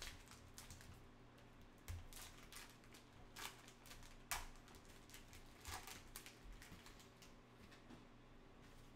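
Faint crinkling and crackling of a trading-card fat pack's plastic wrapper being torn open and handled, with a few louder crackles scattered through.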